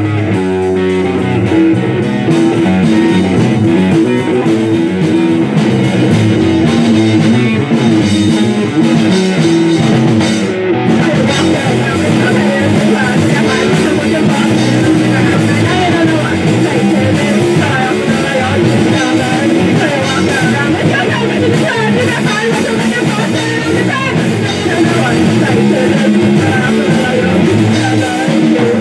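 Live rock band playing a song, with electric guitar to the fore over bass and drums.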